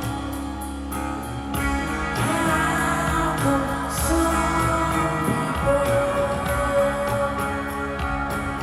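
Live rock band playing, with electric guitar, drums and cymbals, and a sung vocal line over them.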